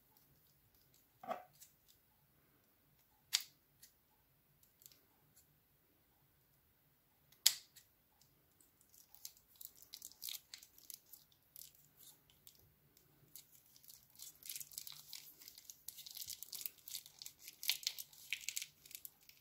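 Thin plastic piping bag crinkling and crackling as hands squeeze and peel it, dense and busier over the last ten seconds. Before that, a few isolated sharp clicks.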